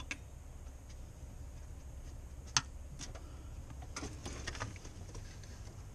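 A few faint clicks and taps of hands reaching among engine-bay parts, the sharpest about two and a half seconds in and a quick cluster of small ones near the end, over a low steady rumble.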